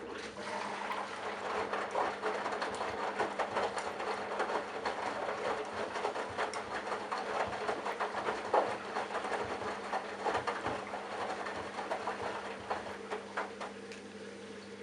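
Candy Bianca washing machine drum turning a delicates load: a steady motor hum, with irregular sloshing and clicks from the tumbling laundry.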